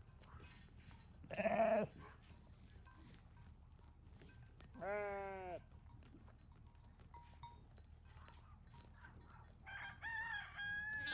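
Sheep bleating twice, each a short wavering baa, about a second and a half in and again about five seconds in. Near the end a higher-pitched call in several parts, a rooster crowing.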